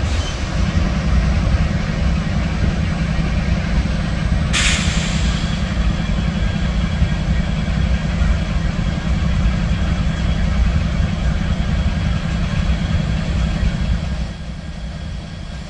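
Tail end of a freight train with cabooses rolling past: a steady, loud rumble of wheels on rail, with one short sharp noise about four and a half seconds in. The rumble drops quieter about fourteen seconds in as the train moves away.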